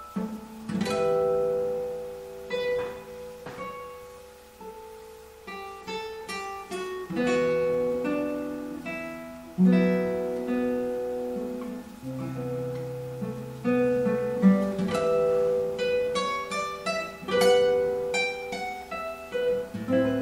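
Solo classical guitar played fingerstyle with nylon strings: a flowing line of plucked single notes and chords over low bass notes that ring on.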